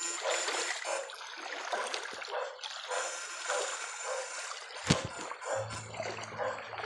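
Feet wading and splashing through shallow creek water, with the irregular swish and trickle of disturbed water. A sharp knock about five seconds in, then a steady low hum starts.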